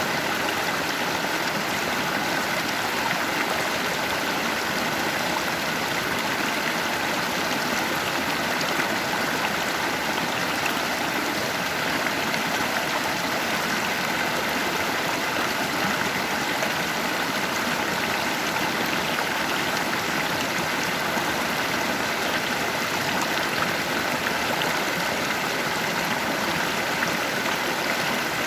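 Stream current rushing and babbling over stones, a steady, unbroken flow of water.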